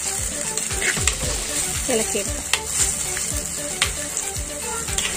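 Shallots, green chillies, ginger-garlic and curry leaves sizzling in hot oil in a clay pot while a metal spoon stirs them, with the steady hiss of frying and scattered sharp clicks and scrapes of the spoon against the pot.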